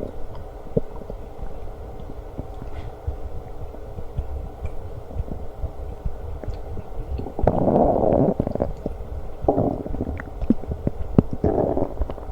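A person's stomach growling and gurgling in a continuous crackly rumble, with three louder gurgling surges in the second half.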